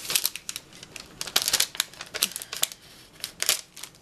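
Packaging crinkling as it is handled, with irregular bursts of crackles that come thickest twice.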